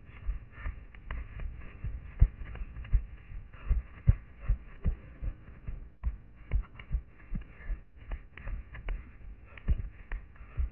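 Running footsteps on a pine-forest floor picked up by a head-mounted camera: dull thuds about three a second, with light rustling between them.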